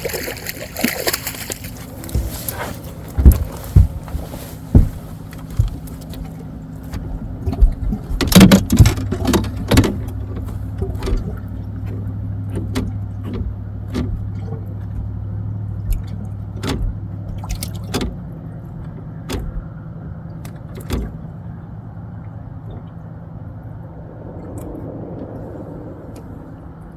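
Steady low hum of a fishing boat's motor, with scattered sharp knocks and clicks from a freshly caught smallmouth bass being handled in the boat; the loudest cluster of knocks comes about eight seconds in.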